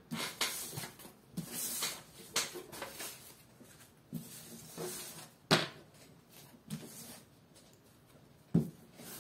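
Tarot cards being slid and gathered up off a wooden tabletop by hand: scattered swishes of card on wood and light knocks, with a sharp tap about five and a half seconds in and another near the end.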